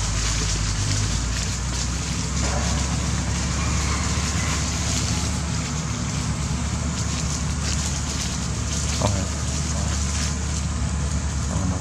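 Steady low drone of a diesel road-construction machine running, under a constant hiss of outdoor noise.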